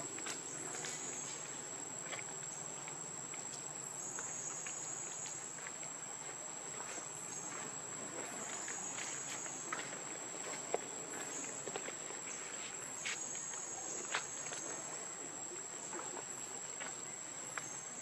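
Insects droning steadily at a high pitch, with scattered small ticks and rustles.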